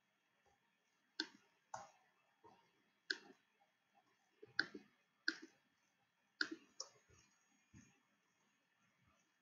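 Computer mouse clicking about eight times at an irregular pace, some clicks in quick pairs, as objects are selected.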